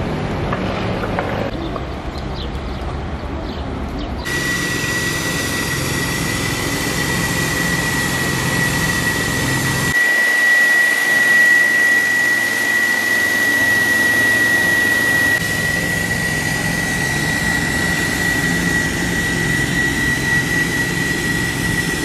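A pickup truck's engine running, then from about four seconds in a truck-mounted insecticide fogging sprayer running: its engine-driven blower gives a steady high whine over rushing air as it blows out a plume of mist against flying insects.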